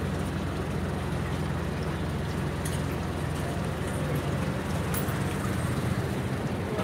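Steady low engine hum with street background noise and a few light clicks.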